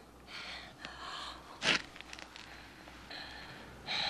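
A woman breathing unevenly and gasping, with one louder gasp a little under two seconds in.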